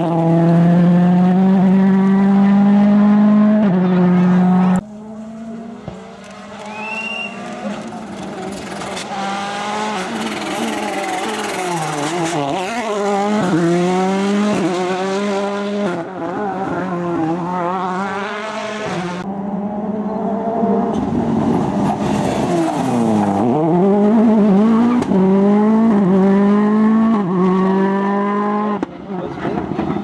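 1.6-litre turbocharged World Rally Car engines at full throttle. First one high, steady engine note holds, then breaks off abruptly about five seconds in. After that a car revs up through the gears again and again, its pitch climbing and dropping at each shift, with several sharp dips on lifts off the throttle and downshifts.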